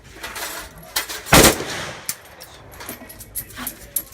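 AK-47 rifle firing one loud shot about a second and a half in, with a short ringing tail. Fainter sharp cracks of other shots come before and after it.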